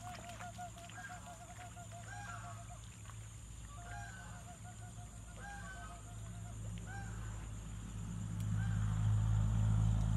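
Chickens clucking in runs of quick repeated calls, several times over. A low rumble grows louder about eight seconds in.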